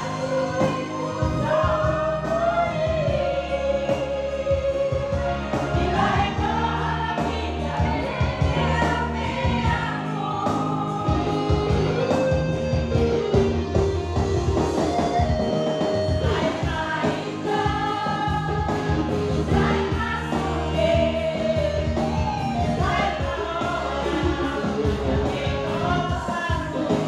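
Music: a song with singing voices over steady instrumental backing.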